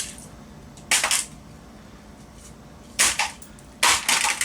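Three sharp smashing blows on a broken Canon ES270 8mm camcorder, about a second in, then two close together near the end.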